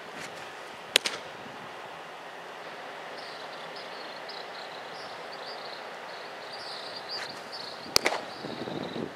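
A thrown baseball pops into a leather glove twice: once into the catcher's mitt about a second in, and once, louder, into the pitcher's glove near the end as the ball comes back. Steady outdoor air noise lies under both, with high chirping in the background for the second half.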